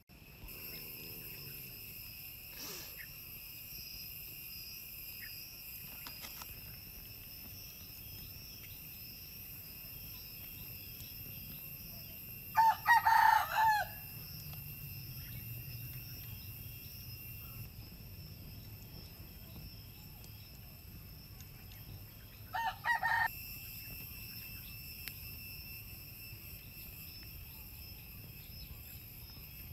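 A rooster crows twice: a longer crow around the middle and a shorter one about ten seconds later, over a steady high-pitched hum.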